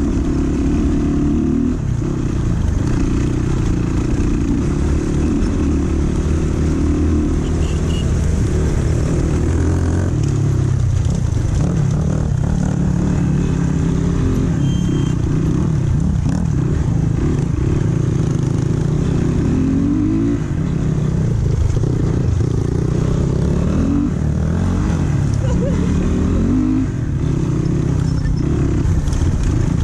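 Dirt bike engine running steadily as it is ridden, with the revs rising several times as the throttle opens.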